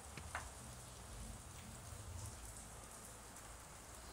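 Masala gravy thickened with mustard paste faintly sizzling and bubbling in a kadai, with a fine, rain-like crackle. There is a brief click about a third of a second in.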